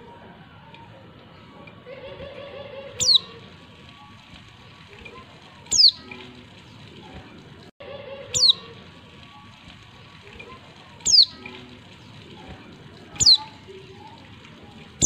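Female white-eye (pleci) calling: five short, high, sharply down-sweeping calls, one about every two and a half seconds. This is the female call used as a lure to make males answer and sing.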